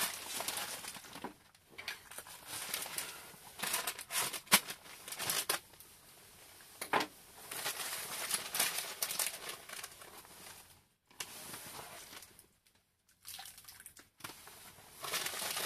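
Plastic packet of groundbait crinkling and rustling in the hands as it is opened, in irregular bursts with short pauses near the end.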